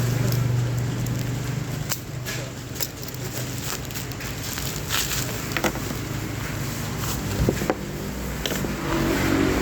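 Handling noise from unboxing a Seiko Elnix watch: scattered light clicks and taps, about nine of them, over a steady low hum.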